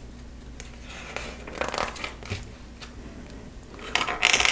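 Small plastic LEGO pieces being handled: light clicks and rustling, with a louder rattling rustle near the end.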